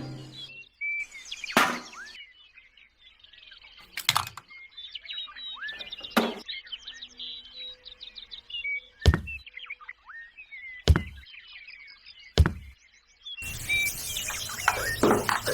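Small birds chirping, with about six sharp knocks spaced one to three seconds apart. A broad hiss of noise starts near the end.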